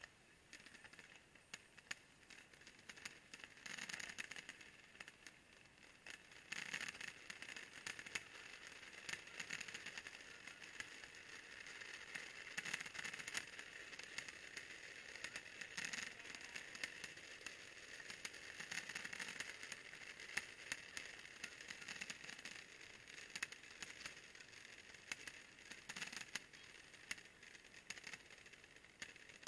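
Faint fireworks display: dense crackling with occasional dull booms, swelling about four seconds in and again about seven seconds in, then crackling on steadily.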